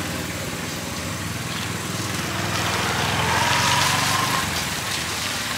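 A small engine running steadily at a constant speed, with a faint whine that rises briefly about three seconds in.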